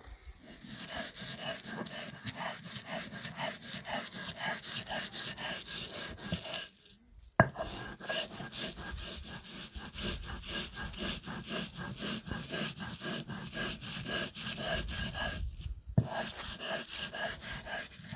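Stone roller rubbed back and forth over a flat grinding stone (sil-batta), grinding salt into a wet paste of green garlic, chilli and spices. The stone-on-stone scraping is rhythmic, about two strokes a second. It pauses briefly twice, and each pause ends with a sharp knock.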